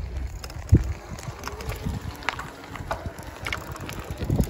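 Riding a bicycle on a rough lane: wind on the microphone and tyres rolling over the surface, with a few short knocks and rattles from the bike.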